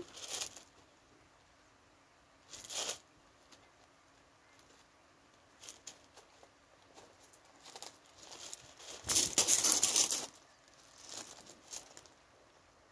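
Short bursts of rustling and brushing close to the microphone, the loudest lasting about a second around nine seconds in, as a kangaroo's furry body moves up against the low camera.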